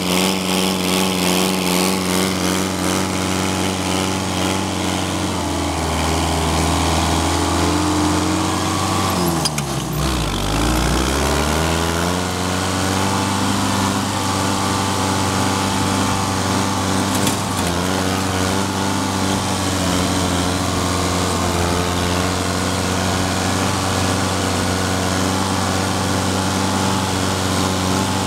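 Metrac mountain tractor's engine running steadily as it drives across a steep meadow. About ten seconds in, the engine speed dips sharply and climbs back up over a couple of seconds, then holds steady again.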